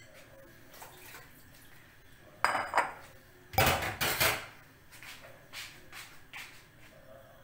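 Kitchen dishes and utensils clattering and clinking in two short bursts, about two and a half and three and a half seconds in.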